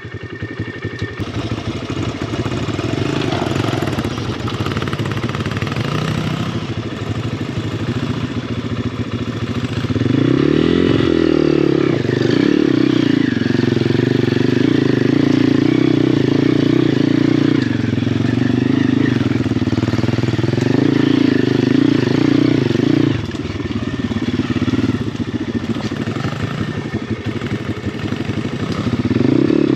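Dirt bike engines running at low trail speed. The nearer engine picks up revs about ten seconds in and holds them, drops back briefly a little past twenty seconds, then rises again near the end.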